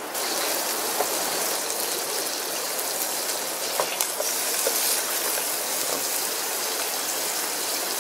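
Steady hiss of ham heating in the pan on a canister-gas Trangia stove, with a few light clicks of handling.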